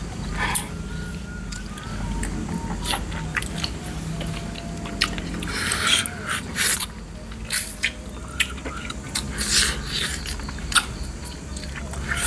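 Close-up mouth sounds of someone eating chicken feet in a thick chilli sauce: irregular wet smacks, sucks and chews, over faint background music.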